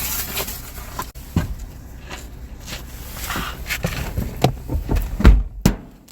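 Scattered knocks and bumps over a low rumble, with one loud thump about five seconds in.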